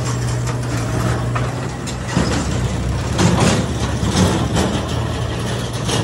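Diesel engines of a JCB 3DX backhoe loader and a tractor running with a steady low hum, while the loader tips a bucket of soil into a tractor trolley. Between about two and five seconds in the machinery noise gets louder and rougher.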